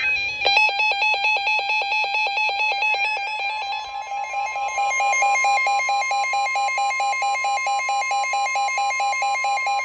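Emergency Alert System attention signal: a loud electronic alert tone pulsing rapidly, several times a second, over a steady higher tone, starting about half a second in. It announces that an emergency warning message follows.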